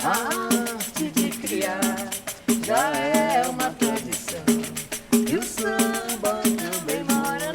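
Samba music: a voice singing over fast, steady percussion.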